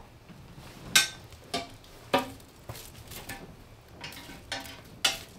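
Metal poker knocking and scraping inside a small steel wood stove's firebox as the bed of coals is stirred: about six sharp clinks at irregular intervals, some with a short metallic ring.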